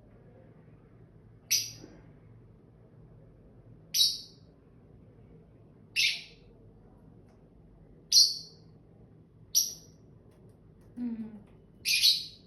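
Small pet parrot giving short, sharp, high chirps, six in all, spaced about two seconds apart.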